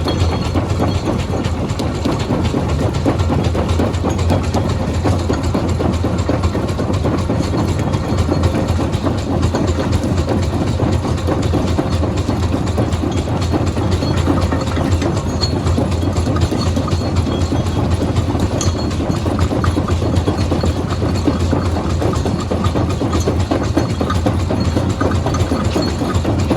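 Heavy machinery at a stone-crushing site running steadily: a loud low rumble with continuous rattling and clatter over it.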